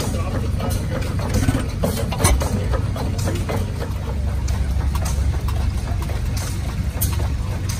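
International Harvester Famous 6 hp hit-and-miss engine running, a steady low chug with irregularly spaced sharp strokes as it fires and coasts, the loudest about two seconds in.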